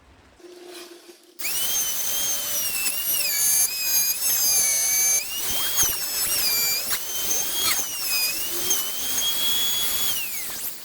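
Palm router running at full speed, cutting a hinge recess in a hardwood door edge through a hinge jig. It starts about a second and a half in, its high whine dips in pitch again and again as the bit bites into the wood, then winds down near the end.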